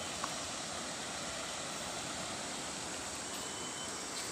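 Steady rush of a shallow, rocky river flowing over riffles, with one faint click near the start.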